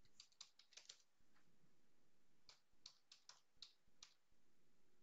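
Faint computer keyboard keystrokes typing a name: two quick runs of about half a dozen taps each, separated by a pause of over a second.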